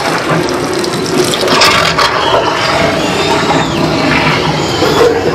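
Loud, dense rushing and hissing din of haunted-house sound effects and soundtrack, with a few faint wavering high tones in the middle.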